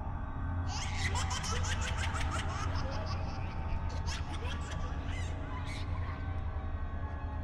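Girlish giggling in a Halloween projection show's soundtrack, a run of quick laughs that starts about a second in and dies away near the end, over a low steady drone.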